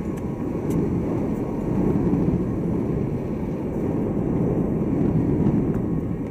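Crowd noise inside a large, echoing church: a steady, dense din of many people without clear words. It swells slightly through the middle and eases off near the end.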